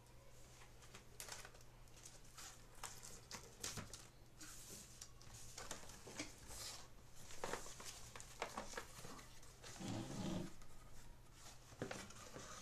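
Cardboard shipping box being cut open and unpacked by hand: scratchy rustling, scraping and light taps of cardboard flaps and packaging being handled, over a faint steady hum.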